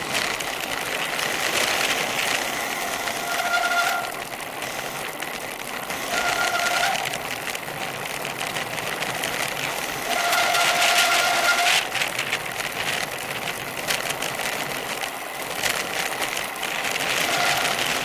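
Wind and tyre noise from a bicycle coasting fast down a sealed road, with a crackly rattle. Four short high squeals cut in, the longest lasting nearly two seconds, typical of bicycle brakes being applied on the descent.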